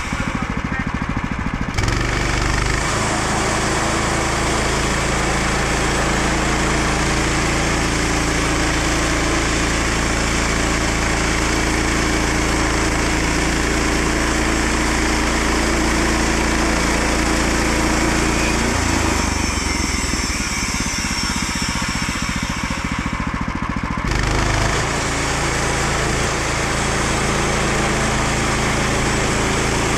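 Engine of a portable bandsaw sawmill running steadily. Its tone changes abruptly about two seconds in, and again around the 19- and 24-second marks.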